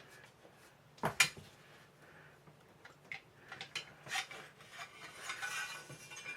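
Light clicks and clatter of small air-rifle parts being handled during disassembly, with a sharp double knock about a second in, then scattered clicks and rubbing.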